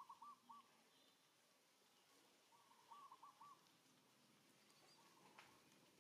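A bird calling faintly: a short run of three or four even notes, repeated about every two and a half seconds.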